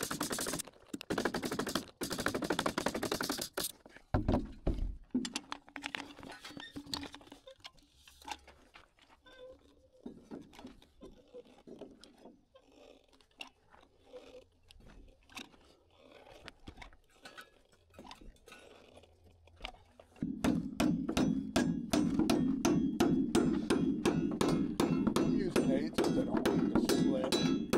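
Floor-framing work on wooden I-joists: a power tool runs in bursts for the first few seconds and stops with a low thump, then quiet clicks and knocks while construction adhesive is squeezed from a caulk gun. From about two-thirds of the way through, a louder steady noise with fast regular ticks takes over.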